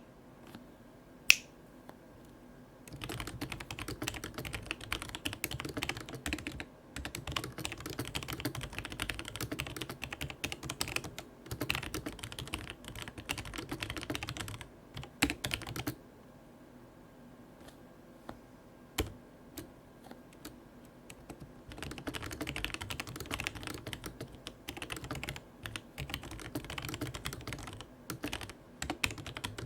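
Fast typing on a Logitech G Pro TKL mechanical keyboard with Romer-G switches, a dense run of key clicks and clacks. It comes in two long bursts with a quieter stretch of only a few scattered keystrokes in the middle, and one sharp click about a second in.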